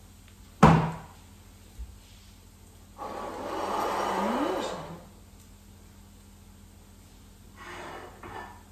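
A heavy ceramic baking dish set down on a stone countertop with one loud thunk, then a small knock, then about two seconds of scraping as the dish and its serving spoon are handled.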